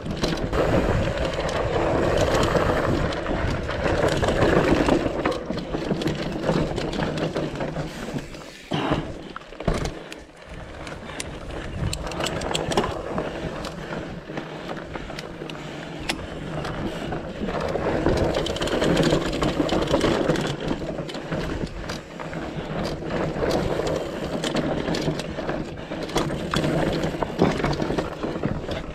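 Mountain bike riding over rough, rocky singletrack: a constant rush of tyres on dirt and rock with many sharp rattles and knocks from the bike shaking over the stones.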